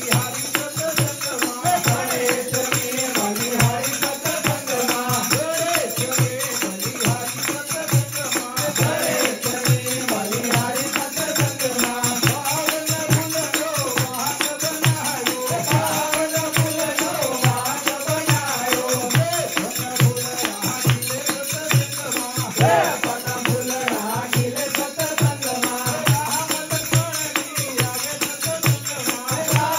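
Men singing a Gujarati devotional bhajan: a lead male voice on a microphone with others joining in, over a steady rhythm of handclaps and a shaken jingling hand percussion instrument.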